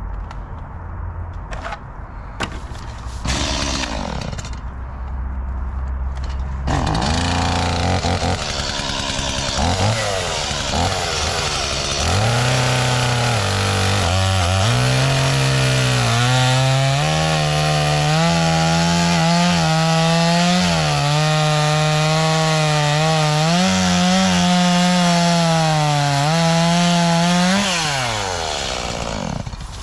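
Chainsaw idling low, then revved up about seven seconds in and held at high speed while cutting through a log, its pitch sagging and recovering under the load of the cut. Near the end the throttle is released and the engine note falls away.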